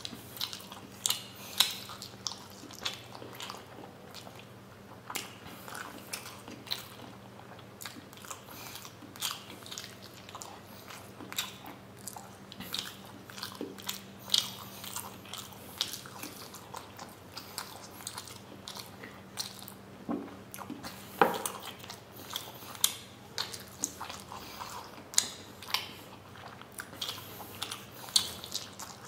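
A man biting and chewing steamed paneer momos dipped in spicy red chutney, with many short mouth clicks coming at irregular intervals. A faint steady low hum runs underneath.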